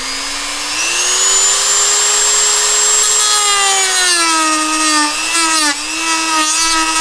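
Dremel rotary tool spinning up with a rising whine, then dropping in pitch about three seconds in as it bites into and cuts through the plastic of the dashboard, wavering under load to the end.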